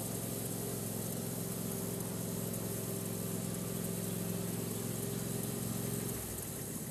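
A motor or engine humming steadily at an even pitch, cutting off about six seconds in.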